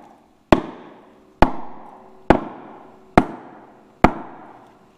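Big hammer striking a block of wood held against the brake drum of a Centurion tank gearbox: five heavy blows a little under a second apart, each followed by a short ringing decay. The blows knock the brake pads into the middle of the drum, side to side.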